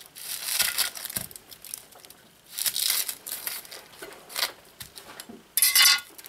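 Dry, papery onion skin crackling as it is peeled off an onion by hand, in four short bouts with the loudest near the end.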